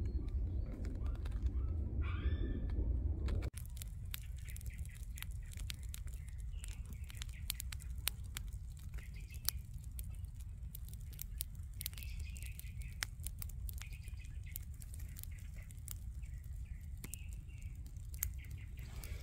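Pruned tree branches burning in a brick fire pit, crackling with many sharp snaps and pops over a low rumble. Birds chirp faintly now and then. For the first three seconds or so a louder low rumble covers everything.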